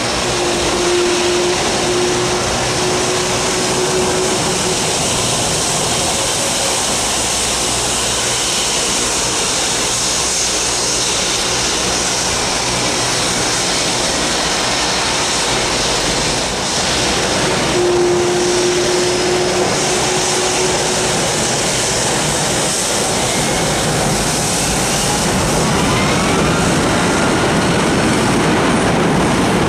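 Boeing 757-200's twin Rolls-Royce RB211 turbofans running at taxi power as the jet taxis and turns onto the runway: a steady jet rush and whine that grows a little louder near the end.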